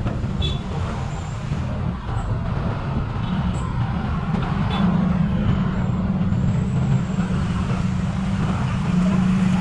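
Motorcycle engine running steadily while riding in traffic, with road and wind noise over it; the engine note gets a little louder about halfway through.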